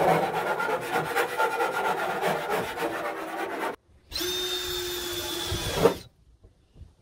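A hand file scraping in quick strokes along the sharp saw-cut edge of a school bus's sheet-metal side panel, deburring it. About four seconds in, a cordless drill runs for under two seconds at a steady whine, drilling at the edge of the cut-out.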